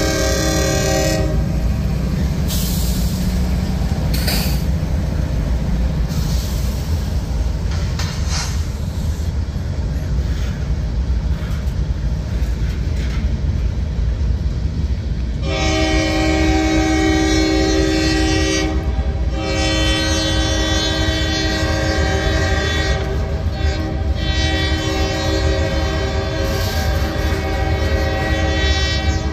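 A Norfolk Southern freight train's boxcars roll past close by with a steady, loud rumble of steel wheels on rail. The locomotive's multi-note air horn sounds a chord briefly at the start. It sounds again in long blasts from about halfway on, with two short breaks.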